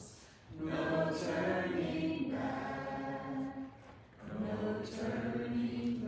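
Several voices singing a slow hymn together, two led by women at microphones, in two long held phrases with a short pause for breath about four seconds in.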